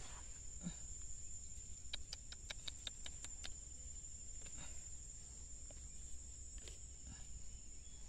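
Steady, high-pitched drone of insects such as crickets, faint throughout, with a quick run of about nine sharp ticks about two seconds in.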